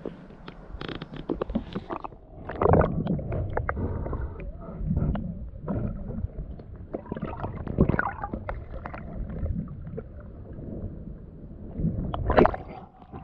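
Water sloshing and gurgling against a kayak's hull, with irregular knocks and a few louder swells of splashing.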